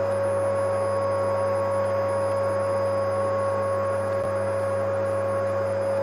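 Vacuum cleaner running steadily: an unchanging motor whine over the rush of air.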